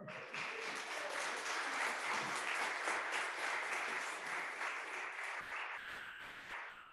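Congregation applauding, a dense patter of many hands clapping that dies away near the end.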